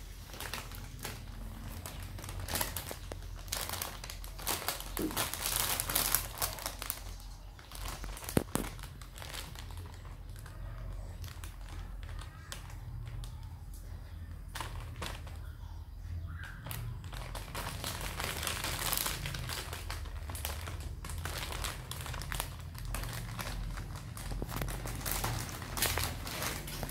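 Clear plastic bag crinkling and rustling in irregular bursts as kittens paw at it and one moves about inside it, loudest a few seconds in.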